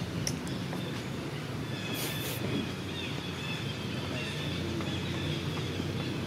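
Outdoor ambience: a steady low rumble, with faint short high-pitched chirps repeating throughout and a brief hiss about two seconds in.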